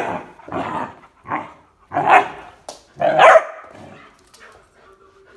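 A dog barking: about five loud barks in the first three and a half seconds, with a single sharp click between the last two.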